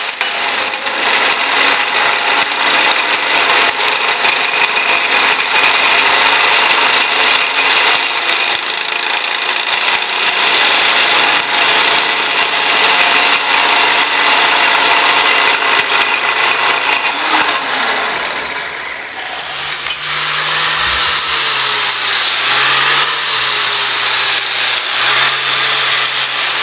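Power saw cutting steel tubing, loud and continuous, in two cuts. The saw's steady high tone falls away about two-thirds of the way through as the first cut ends, and a second cut starts a couple of seconds later.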